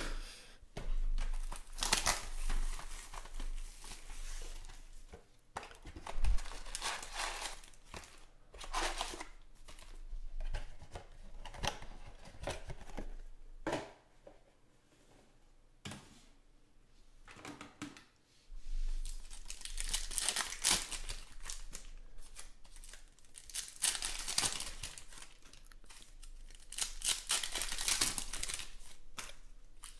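Cardboard card boxes and foil-wrapped trading card packs being torn open and handled, in a run of crinkling, tearing bursts with a lull of a few seconds about halfway through.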